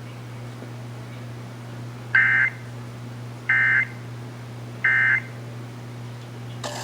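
Emergency Alert System end-of-message data tones: three short, identical warbling digital bursts about a second and a half apart, over a steady low hum. The bursts signal the end of the alert.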